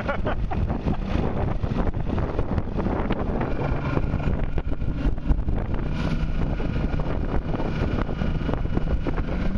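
Bass boat underway at speed: a steady outboard engine drone under heavy wind buffeting on the microphone, with the hull running through the water.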